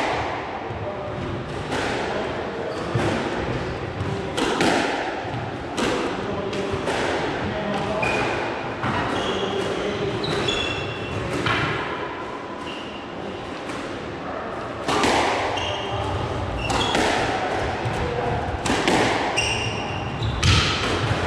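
Squash rally: the ball struck by rackets and smacking off the court walls in sharp, irregular thuds that echo around the court, with short high squeaks of shoes on the court floor between shots.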